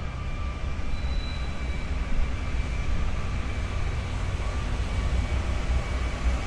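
Union Pacific freight train's diesel locomotives approaching, a steady low rumble with a faint high whine over it.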